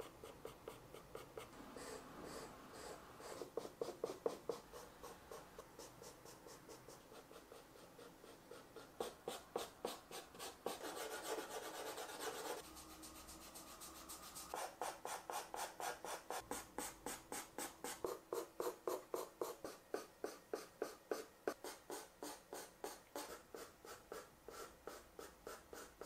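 Pastel pencil scratching on pastel paper in quick, short repeated strokes, about three a second, with one longer steady rub around the middle.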